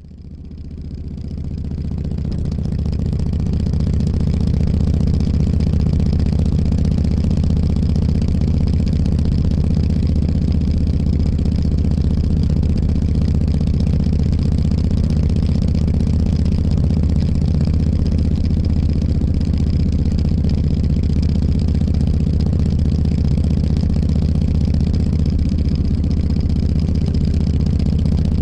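Motorcycle engine idling steadily, fading in over the first few seconds.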